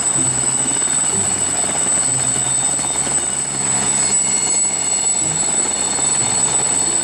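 Helicopter sound effect: steady engine and rotor noise with a high, steady whine over it.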